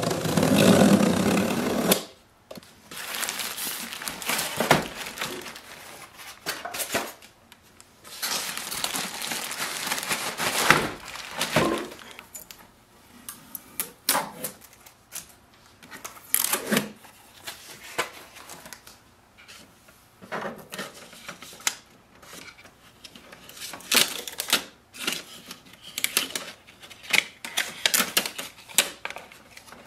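Unpacking noises: packaging rustling, scraping and clicking as it is handled, and strips of orange packing tape being peeled off a new laser printer. The loudest handling comes in the first two seconds, then rustles and clicks come in irregular bursts.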